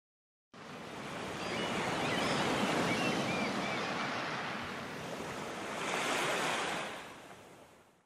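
Sound effect of ocean surf and wind: waves washing in, swelling again around six seconds in and fading out near the end.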